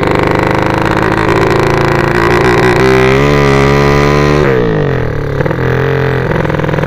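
Small engine of a homemade bicycle-frame 'sleep engine' minibike running hard under way. It revs up about two seconds in, holds high, drops sharply in pitch around four and a half seconds as the throttle comes off, then settles and climbs again near the end.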